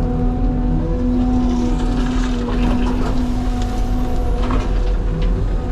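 CAT 323 excavator's diesel engine and hydraulics running steadily under load, with a steady whine over the engine hum, heard from inside the closed cab. Scraping and a few knocks come in the middle as the bucket works the ground.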